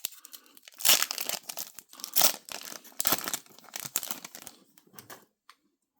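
Trading card pack wrapper being torn open and crinkled by hand, in irregular bursts that die away about five seconds in.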